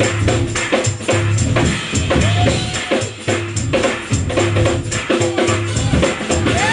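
Live band of bass guitar, keys, organ and drum kit playing an upbeat groove, with a pulsing bass line under a steady, driving drum beat.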